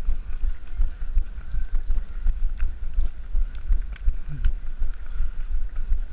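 Running footfalls on asphalt, an even thudding about three times a second, picked up by a camera carried by the runner so each stride jolts it.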